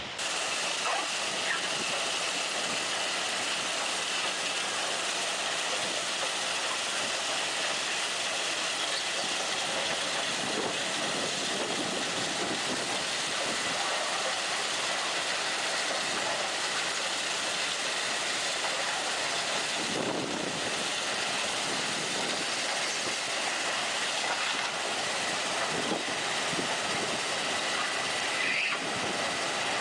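Railway track maintenance machine working on the line: a steady, high hissing noise with faint high tones running through it.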